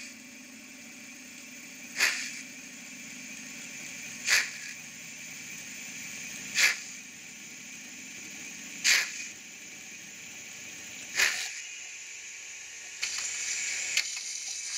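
N-scale model steam train running slowly on a model railway layout: a steady low hum with a short hiss about every two and a quarter seconds. Near the end the hum stops and a louder rattling, clicking noise takes over.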